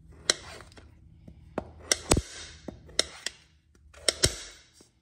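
A chef's knife cutting through raw, peeled butternut squash: the blade crunches through the firm flesh and knocks down on the cutting mat with each slice. There are about nine cuts, with two heavier thuds, one about two seconds in and one about four seconds in.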